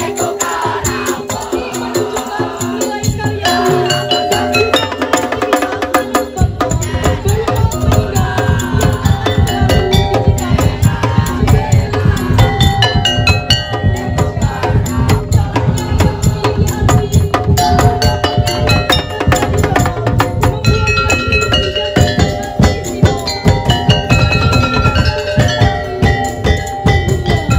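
Daul Madura ensemble playing: a dense, driving percussion rhythm under a stepping melodic line. Heavy low drums come in about six seconds in.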